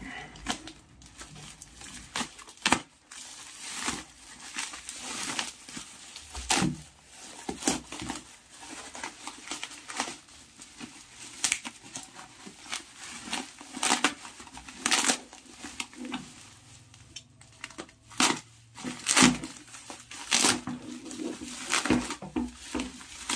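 Plastic bubble wrap being cut open, pulled off and crumpled by hand: irregular crinkling with sharp crackles and rips.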